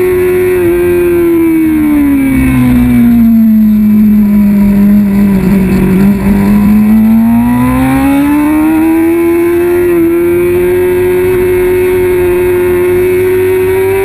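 Kawasaki ZX-6R 636 inline-four engine running at racing speed: its pitch sinks slowly over the first five seconds or so, then climbs back up and holds steady and high for the rest.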